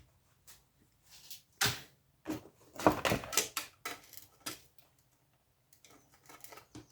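Irregular clicks and knocks of hand tools working components off a power-supply circuit board, the busiest and loudest stretch about two to four seconds in, with a few lighter clicks near the end.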